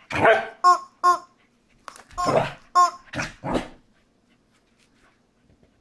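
A corgi barking repeatedly at a rubber chicken squeak toy, which gives short, identical honking squeaks between the barks. Both stop about four seconds in.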